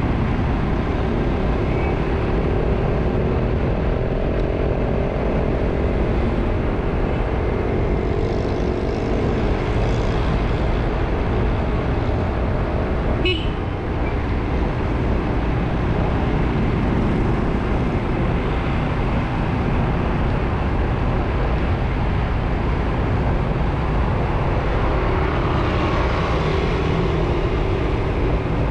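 Motorcycle engine running while riding, its pitch drifting up and down with speed, under steady wind and road noise. A brief sharp sound cuts in about halfway through.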